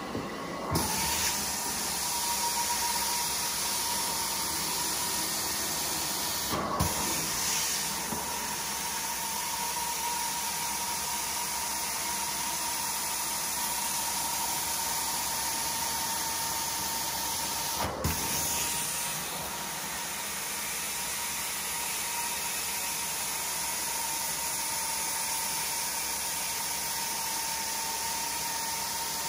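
Carpet-cleaning extraction wand spraying rinse and sucking it back up as it is pulled across the carpet: a steady loud hiss with a steady whistling tone under it, broken briefly twice, about seven and eighteen seconds in.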